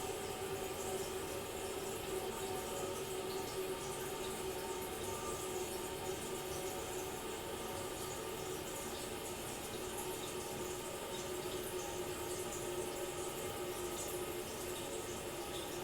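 Distant toilet cistern refilling after a flush: a steady rush of running water with a faint steady tone, muffled by distance.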